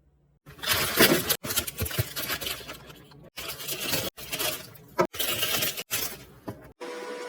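Clinking and clattering of objects being handled, in several short snippets that cut off abruptly one after another.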